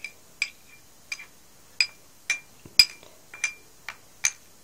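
A fork clinking against a cup of water as fizzy candies are stirred in: about nine short, ringing clinks, roughly two a second.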